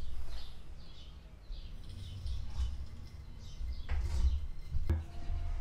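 Engine hoist lowering an engine and transmission onto a wooden pallet: short high squeaks over a low rumble, then two sharp knocks about four and five seconds in as the engine settles onto the pallet.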